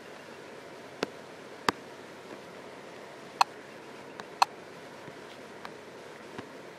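A handful of sharp taps on a touchscreen at uneven intervals, three of them louder, over a steady faint hiss of microphone noise.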